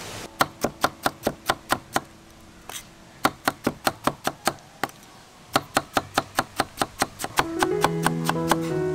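Cleaver chopping pineapple on a wooden chopping block: quick, even strokes about four or five a second, in three runs with short pauses. Acoustic guitar music comes in near the end.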